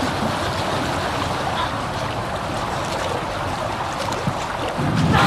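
Steady rush of river water, with splashing from a bear swimming through the current.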